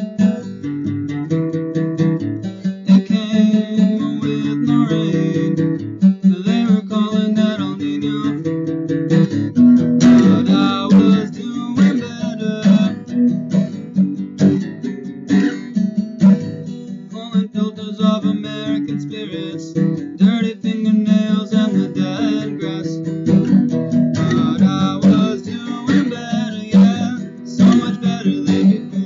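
Steel-string acoustic guitar strummed in a steady rhythm, chords changing throughout, with a man's voice singing along at times.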